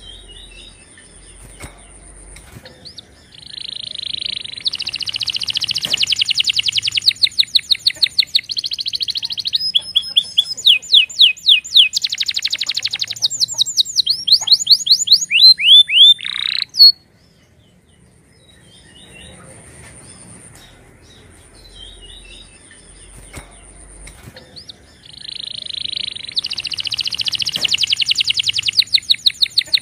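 Domestic canary singing long rolling phrases of rapid repeated trills and quick sweeping notes. The song breaks off for a few seconds past the middle, with only softer chirps, and starts again near the end.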